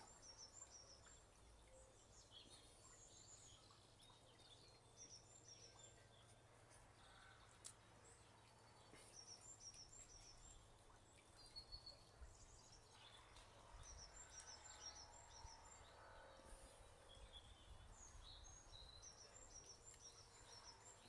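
Faint birdsong: a small bird singing short phrases of quick, high chirps, repeated every few seconds, over a faint low hum.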